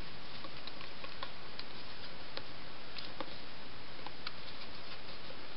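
Faint, irregular light clicks and ticks from a small plastic water bottle and a cardboard toilet-paper tube being handled and taped together. A steady hiss runs underneath.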